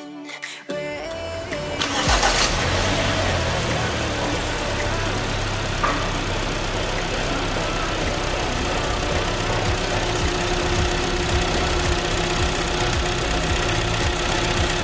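A freshly overhauled Kia G4KD 2.0-litre four-cylinder petrol engine turning over and catching about two seconds in, then running steadily at idle. This is its first start after a full rebuild.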